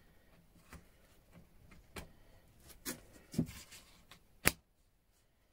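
Small metal wrenches knocking and clunking against a plastic tub of rust-remover solution as they are forced in. Several knocks lead to one sharp, loud crack near the end, which the owner fears has cracked the tub.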